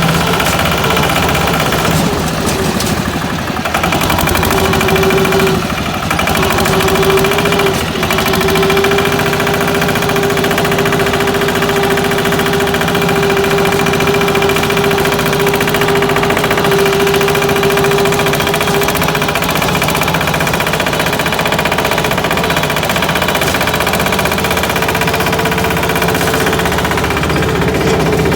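Engine of a patpat, a single-cylinder diesel two-wheel tractor, running steadily with a fast knocking beat. A steady mid-pitched tone sounds over it from about five seconds in until about nineteen seconds, and again near the end.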